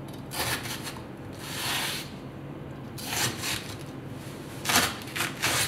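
Chef's knife slicing lengthwise through peeled rhubarb stalks onto a cutting board: about six irregular scraping cuts, the second one longer and drawn out, and three quick ones close together near the end.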